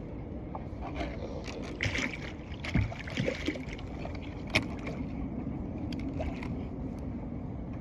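Water sloshing with a few irregular knocks and clicks as a catfish is pulled out by hand, over a steady low rumble.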